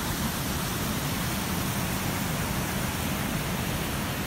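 Steady rushing of a fast-flowing creek's white water, an even hiss that holds at one level throughout.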